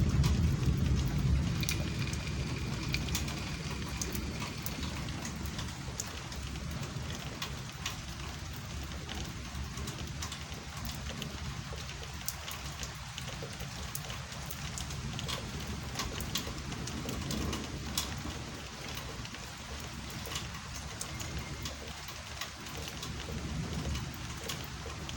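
Thunderstorm rain falling steadily, with individual drops giving sharp ticks. A low roll of thunder dies away over the first few seconds.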